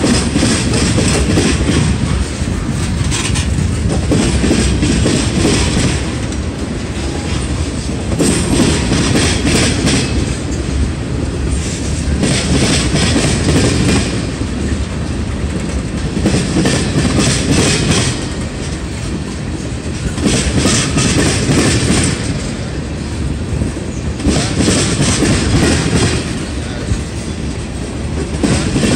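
Freight train of covered hopper cars and tank cars rolling past, its wheels clacking and rumbling on the rails. A louder spell of clatter comes about every four seconds as each pair of cars' wheel trucks goes by.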